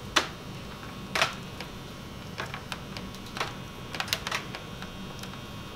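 Irregular light clicks and ticks of a coil being handled and unwound by hand, with the loudest a moment in and about a second in, over a low steady hum.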